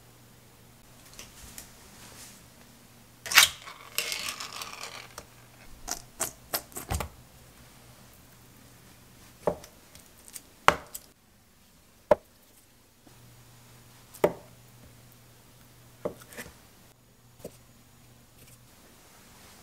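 A cleaver-style kitchen knife slicing a block of Spam on an end-grain wooden cutting board, with about seven separate knocks of the blade meeting the board, a second or two apart, in the second half. Before that, about three seconds in, there is one sharp click followed by a second or so of scraping, and a few lighter clicks a little later.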